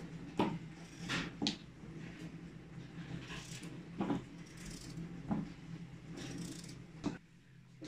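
A knife slicing through a raw potato held in the hand, with several short knocks and clicks as the wedges drop into a ceramic bowl of sauce, over a steady low hum.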